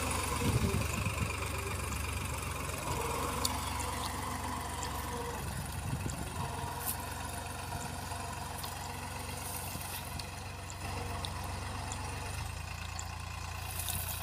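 Farm tractor's diesel engine running steadily at low speed while it pulls a cultivator between rows of cotton.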